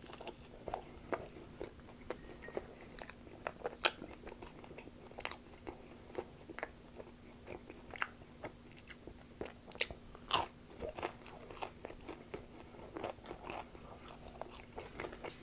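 Close-up chewing and biting of pizza: irregular crisp crunches and clicks, the loudest about ten seconds in. A faint steady hum sits underneath.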